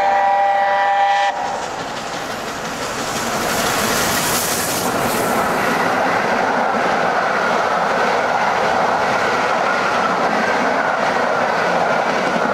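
LNER A4 class 4-6-2 steam locomotive 60019 Bittern sounding its chime whistle, several notes together, cut off about a second in. Then the locomotive rushes past at speed and its coaches roll by, a loud continuous rumble and clatter of wheels on rails.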